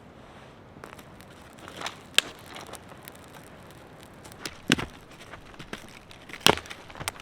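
Campfire crackling, with irregular small snaps and three louder sharp pops.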